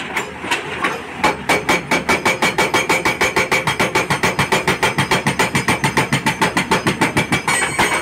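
Hydraulic rock breaker on a JCB 215LC excavator hammering rock in a rapid, even rhythm of about seven blows a second. The blows start about a second in and stop near the end.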